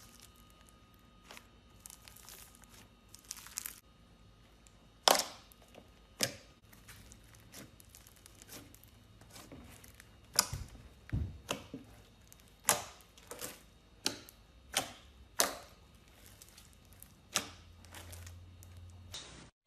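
Slime being squeezed and stretched by hand, giving a faint crinkly rustle and then about a dozen sharp, irregularly spaced crackling pops.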